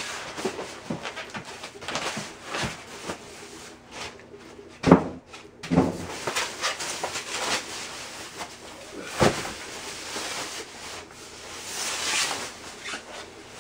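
Styrofoam packing and a plastic bag being handled as a studio monitor is unboxed: rustling, squeaks and small clicks, with a few louder knocks about five, six and nine seconds in as the speaker cabinet is moved.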